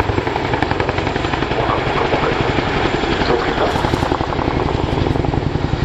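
Boeing Chinook tandem-rotor helicopter in flight, its two rotors beating in a fast, steady chop over the turbine noise.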